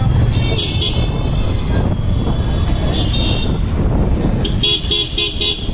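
Aftermarket motorcycle horn beeping over a steady low wind and road rumble from riding: a short blast near the start, another about three seconds in, then four quick beeps near the end.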